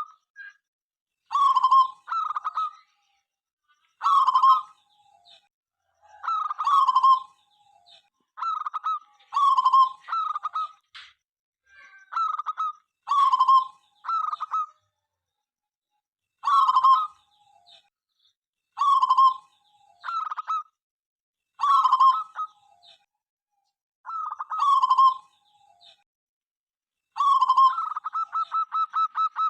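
Zebra dove (perkutut) cooing, repeating short phrases of about a second each with brief pauses between them. Near the end it goes into a fast run of rapid, evenly repeated coo notes.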